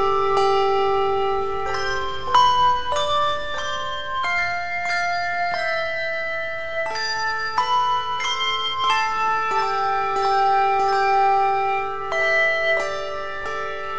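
Handbell choir ringing a hymn arrangement: many struck handbells sounding in chords, each note ringing on and overlapping the next, over a long-held low bell note.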